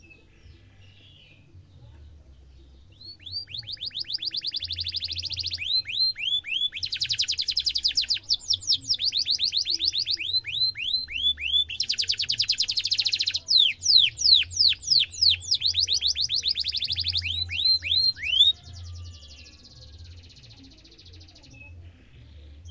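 Domestic canary singing a long song of fast rolling trills and quickly repeated sweeping notes. The song starts about three seconds in and breaks off suddenly near the end, followed by a shorter, quieter trill.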